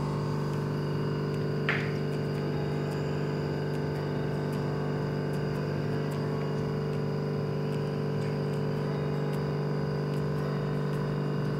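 Vacuum pump motor running with a steady, even hum while it holds the chamber under vacuum for a package leak test. One brief faint tick about two seconds in.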